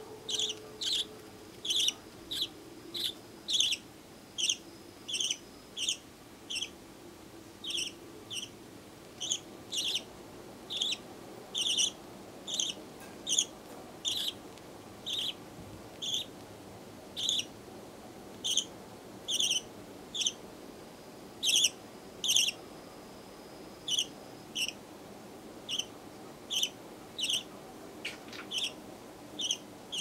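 A young budgerigar chick, about a month old, giving short high chirps over and over at a fairly regular rate of a little more than one a second.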